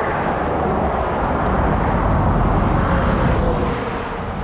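A motor vehicle driving past close by: a steady rush of engine and tyre noise that eases off near the end.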